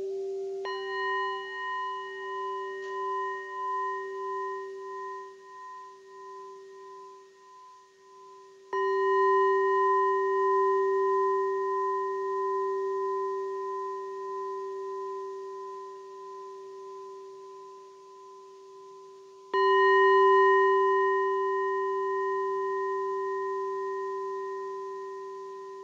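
A hand-held singing bowl struck three times: about a second in, about nine seconds in and about twenty seconds in. Each strike rings out as a long, steady tone with higher overtones above it, wavering in loudness as it slowly fades.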